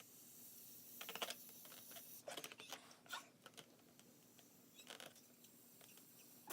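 Near silence broken by a few faint rustles and taps of something being handled, in short clusters about a second in, around two to three seconds in, and again near five seconds.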